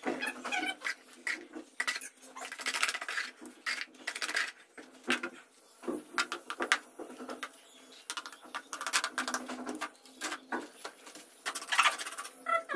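Wet cement mortar tipped from a bucket and then worked with a trowel: irregular scrapes, slaps and taps of the trowel blade in the mortar.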